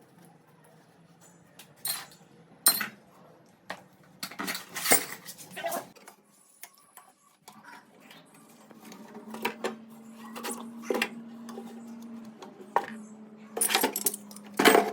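Sharp metallic clinks and knocks of plumbing tools and tap fittings being handled, scattered irregularly and loudest near the end, with a steady low hum starting about halfway through.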